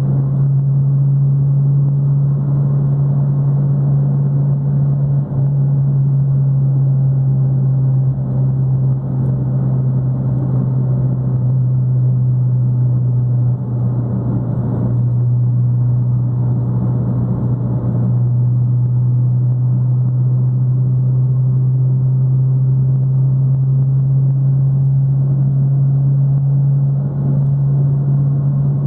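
Fiat Palio's engine and exhaust droning steadily at a constant highway cruising speed: one low, even hum that holds its pitch, over a steady rush of road noise.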